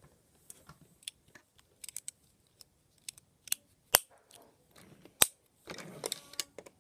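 Plastic Lego pieces clicking and knocking as they are handled and pressed together onto a Lego train base: scattered sharp clicks, the two loudest about four and five seconds in, with some rustling near the end.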